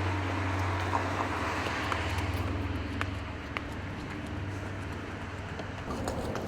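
Street traffic noise: a low engine hum from a vehicle fades away over the first few seconds, leaving a steady road hiss with a few light clicks.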